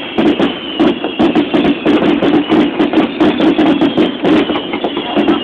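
Loud music with a quick, steady beat of sharp hits.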